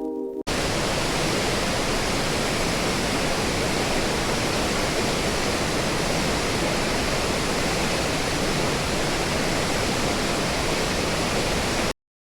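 Waterfall rushing: a steady, even wash of falling water that cuts off abruptly near the end.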